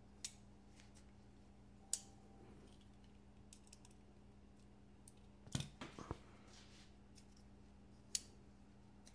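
Small sharp clicks and taps of folding-knife parts being handled during reassembly: single clicks near the start, about two seconds in and near the end, with a quick cluster of several clicks a little past halfway.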